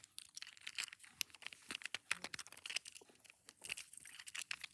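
Plastic fidget cube being worked by hand: an irregular run of light clicks and scratchy rubbing as its buttons, switches and dials are pressed and turned.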